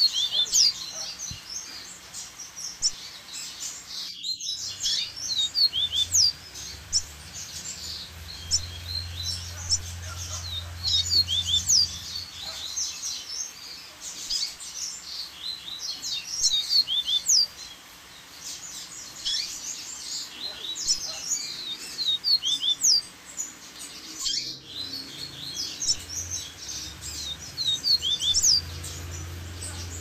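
A chorus of double-collared seedeaters (coleiros) singing together, a dense overlap of quick high chirps and trills, over the steady rush of a waterfall. The sound cuts out briefly twice, about four seconds in and again near the end.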